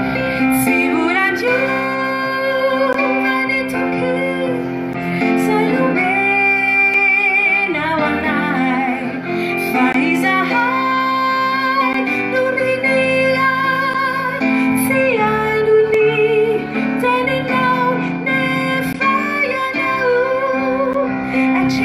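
A woman singing a Malagasy Christian praise song live into a microphone, backed by a small band with keyboard and acoustic guitar; her held notes waver with vibrato.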